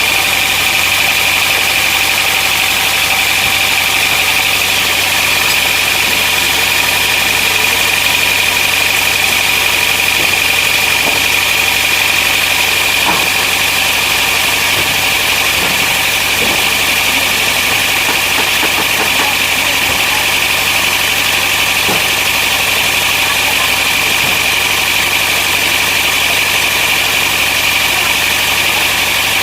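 Sawmill machinery running steadily: a constant engine-like drone with a high, even whine over it.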